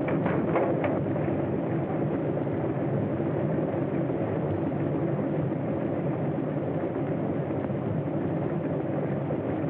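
Propeller passenger plane's engines running with a steady, even drone, with a few brief rattles in the first second.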